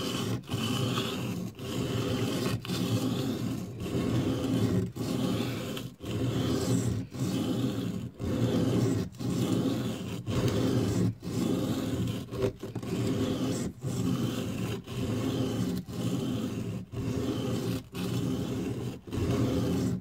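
Small steel knife blade pushed and pulled across an oiled sharpening stone, with an even scraping stroke about once a second.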